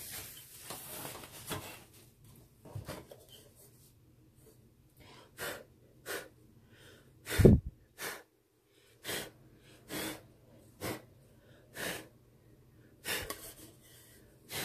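A paper towel rubbing over the shadow box glass, then about ten short scuffs and taps roughly a second apart as the gray frame pieces are handled, with one heavier knock about halfway through.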